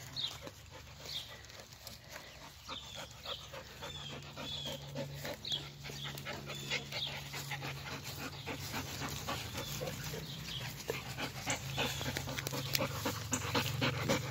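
Dog panting steadily, with short high chirps repeating throughout.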